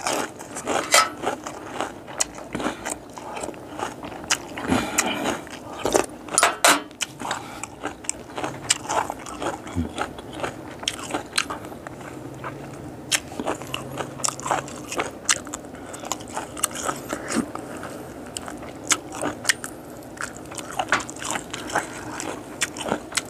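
Close-miked eating of boiled whole frogs with lettuce: steady chewing broken by irregular crisp crunches and clicks as the small bones and leaves are bitten through.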